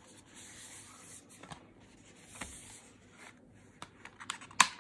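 Cardboard Blu-ray digipak being opened and unfolded by hand: soft paper-and-card rustling, then a quick run of light clicks and taps as fingers handle the discs in their plastic trays, the sharpest click near the end.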